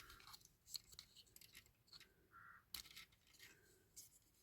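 Near silence with a few faint clicks and scratches: small parts being pulled off a 1/18-scale diecast model car.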